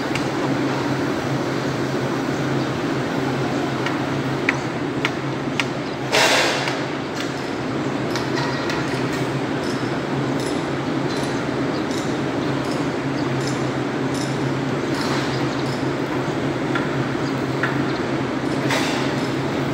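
Steady low machine hum, with scattered light clicks and a brief rushing noise about six seconds in.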